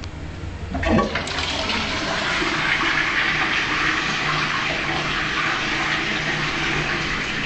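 Toilet flushing: a sudden rush of water about a second in, then a steady, hissing flow of water that keeps running.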